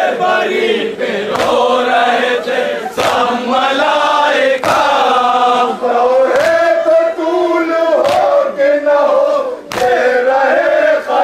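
A crowd of men chanting a nauha, a Shia mourning lament, in unison. Their collective chest-beating (matam) lands together as a sharp beat about every one and a half seconds.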